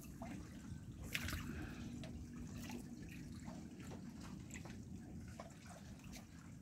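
Faint water drips and small splashes at the surface of a fish pen, with a sharper splash about a second in, over a low rumble of wind or handling noise.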